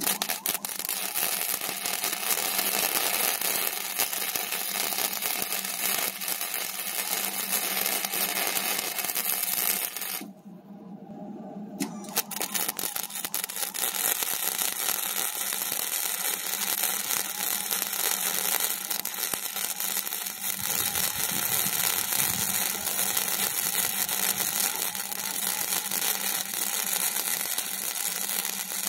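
Arc welding: the welder's arc crackles and hisses steadily, stops for a couple of seconds about ten seconds in, then strikes up again.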